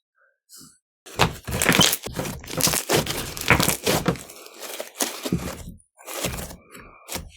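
Clear slime being squished and pressed by hand, making runs of sticky popping and crackling sounds, starting about a second in after a brief quiet.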